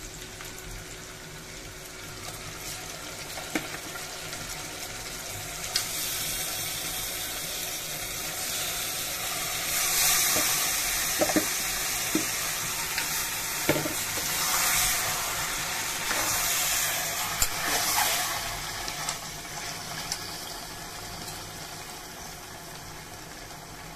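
Marinated mutton sizzling as it goes into hot oil with fried onion and whole spices in a pressure cooker. The frying hiss swells through the middle as the meat is added and stirred, then eases, with a few sharp clicks of a metal spoon against the pot.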